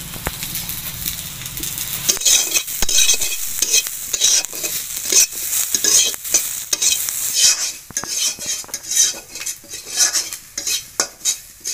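Metal spatula scraping and stirring sliced onions, garlic cloves and whole cumin seeds frying in oil in a metal kadai, with the oil sizzling. Repeated quick scraping strokes start about two seconds in.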